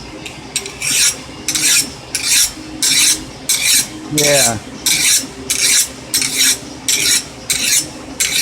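Steel file stroked back and forth along a hardened steel knife blade, about two rasping strokes a second. The file skates across the steel, the sign that the blade has hardened.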